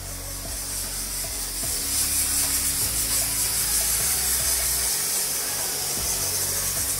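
Pressure-washer water jet hissing steadily as it washes dust out of an air handling unit's cooling coil fins, getting louder in the first couple of seconds, over a low steady hum.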